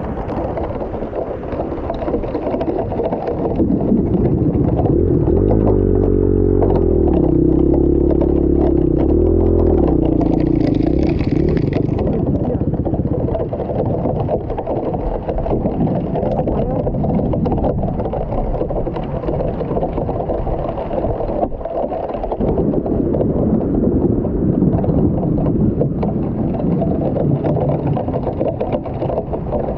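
Off-road vehicle engine running on a trail, its pitch rising and falling as it revs for a few seconds, amid steady rumbling noise.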